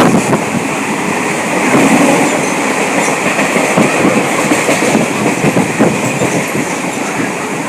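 Passenger train running along the track: a steady rumble and hiss with the wheels clicking irregularly over rail joints.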